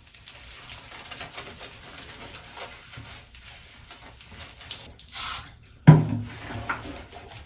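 Light pattering and shuffling in a small tiled bathroom during a dog's bath, with a short hiss about five seconds in and a single thump just before six seconds.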